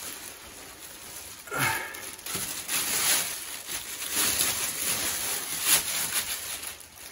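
Clear plastic protective bag rustling and crinkling in irregular bursts as it is pulled off a large subwoofer cabinet.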